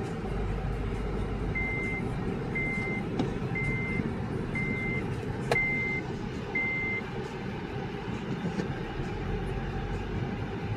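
Steady engine and road noise inside an Acura TSX's cabin while driving. A series of six short electronic beeps, about one a second, sounds in the first part, and a single sharp click comes about halfway through.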